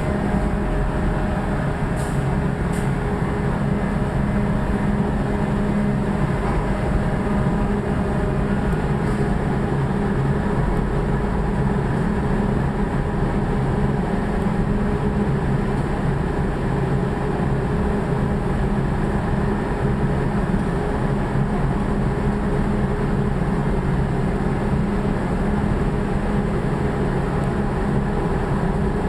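Cable-making factory machinery running steadily: a continuous mechanical hum and rumble with a low drone.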